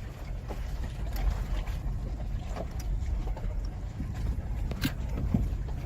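Third-generation Toyota Tacoma driving slowly over a rough mountain trail: a steady low rumble with scattered knocks and rattles.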